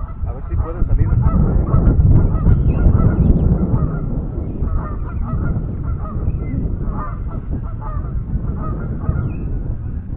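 Geese honking repeatedly in short calls over a steady low rumble of wind on the microphone.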